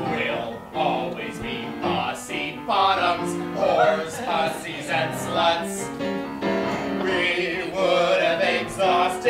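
Two male voices singing a comic show-tune duet over instrumental accompaniment.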